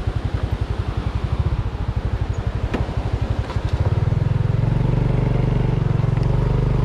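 Honda Dash 125 FI's single-cylinder four-stroke engine running at low revs with a slow, pulsing beat, then revving up about four seconds in and holding a steadier, higher note as the bike climbs a gravel track. A few faint clicks, likely gravel under the tyres, sound over it.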